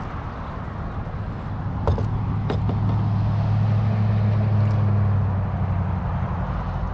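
A boat motor humming steadily, rising in level about two seconds in and easing off near the end, with a few sharp clicks over it.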